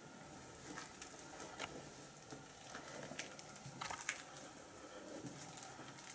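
Footsteps crunching on debris and grit, with scattered faint crunches and clicks and a cluster of sharper ones about four seconds in.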